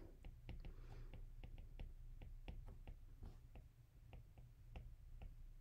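Faint, irregular clicks, a few a second, of a stylus tip tapping on a tablet's glass screen during handwriting, over a low steady room hum.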